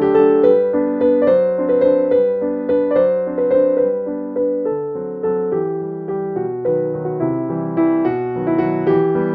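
Background piano music: a gentle melody of notes struck in a steady flow, each one fading after it sounds.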